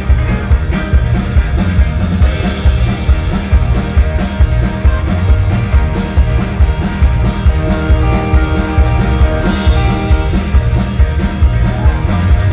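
Live band playing an instrumental passage with a steady beat and no singing.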